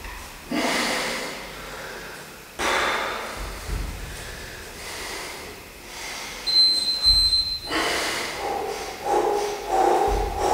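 A man breathing hard in forceful exhalations while straining through a slow hanging row on sling trainer straps, his voice coming into the strained breaths in the last couple of seconds. A brief high-pitched tone sounds about two-thirds of the way through.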